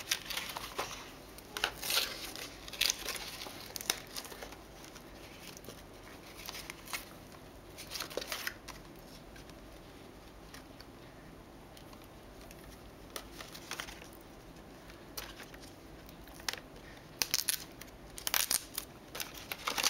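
Cardboard packaging being worked open by hand: sticky tape peeled and tabs pulled, giving irregular crinkling, rustling and tearing. A quieter stretch comes in the middle, and the sharpest, densest crinkles come near the end.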